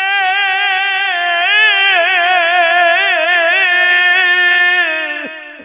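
Male vocalist singing Punjabi Sufi kalam, holding one long note with wavering, ornamented pitch for about five seconds before it fades away.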